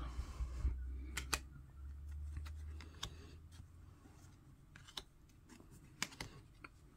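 Glossy trading cards being handled and shuffled in the hands, giving a scattering of faint, sharp clicks and snaps as the card edges knock together.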